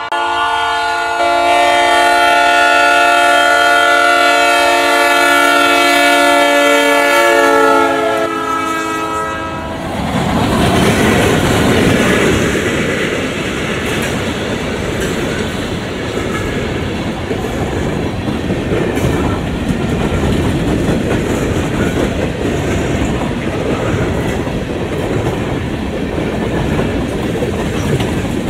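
Freight train's locomotive air horn sounding one long chord for about nine seconds as it approaches. Then the train passes close by, a string of empty hopper cars rumbling and clacking over the rail joints.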